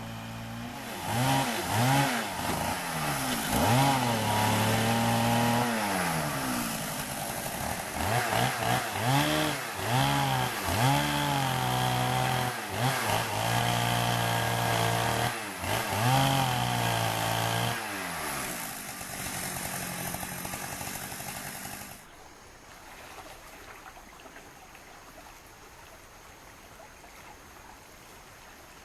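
Chainsaw engine revving up and dropping again and again, its pitch sagging under load as it cuts wood, then running more evenly before cutting off abruptly about three-quarters of the way in. A quieter steady rushing follows.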